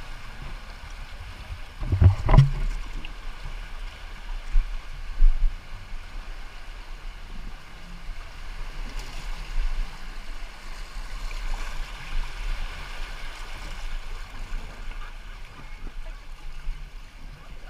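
Water lapping and flowing around an inflatable tube drifting along a lazy river channel, with a few dull thumps about two seconds in and again around five seconds.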